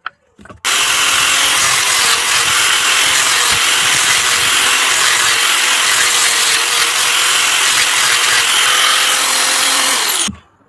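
Electric power tool running steadily at full speed, with a steady high whine over a loud hiss. It switches on abruptly near the start and winds down with a falling pitch near the end.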